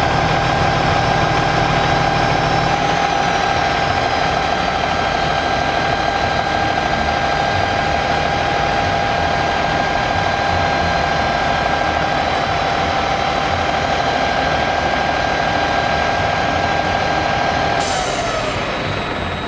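Powered ladder rack on a Rosenbauer Commander pumper-tanker lowering its ladders from the roof: a steady motor-and-pump whine over the truck's running engine. About 18 seconds in, the whine falls in pitch and stops as the rack reaches its lowered position, with a brief hiss.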